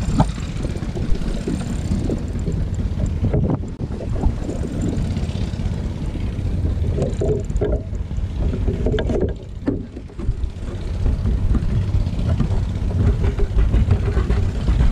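Wind buffeting the microphone: a steady low rumble with a few small knocks.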